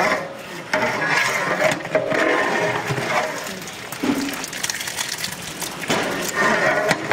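Long metal ladle stirring curry and knocking against the rim of a large aluminium cooking pot, with short clanks scattered through, over background voices.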